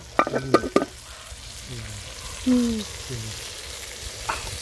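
A metal pot lid clatters in a few quick knocks as it comes off the pot, then the hot food in the pot over the wood fire sizzles steadily while being stirred.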